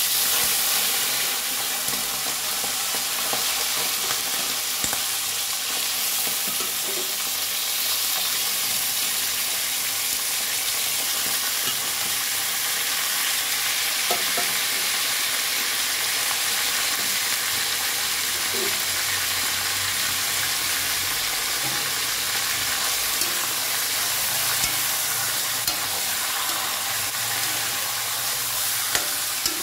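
Raw chicken wings frying in hot oil in a wok: a loud, steady sizzle that starts suddenly as the meat goes into the pan, with the odd scrape of a spatula stirring it.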